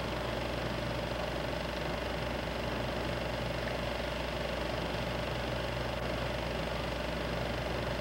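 Steady mechanical hum with a faint constant whine, unchanging throughout.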